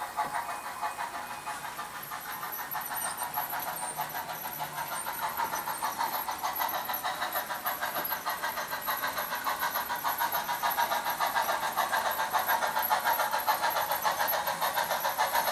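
HO-scale model steam locomotive pulling a freight train, running with a regular beat about three times a second that slowly grows louder as it comes out of the tunnel and onto the bridge.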